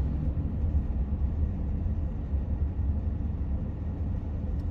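Steady low rumble of engine and road noise heard from inside a minivan's cabin while it drives along at town speed.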